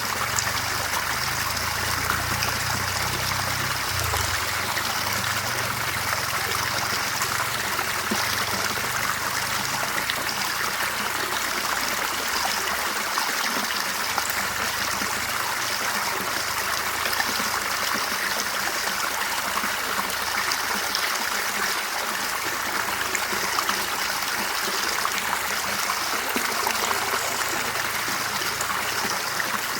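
Clear river water running over stones, a steady babbling and trickling stream.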